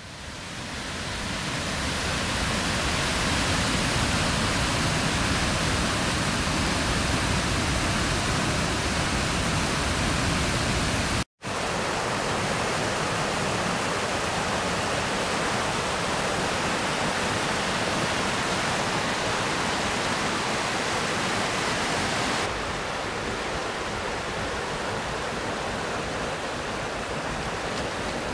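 Steady rushing of a river at high water: first a torrent pouring through a dam spillway, then rapids over boulders. The sound cuts out for an instant about eleven seconds in, and turns a little less hissy a little after twenty seconds.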